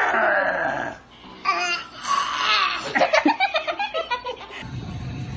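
A baby's high, drawn-out squeal falling in pitch, then babbling and a run of quick bursts of laughter.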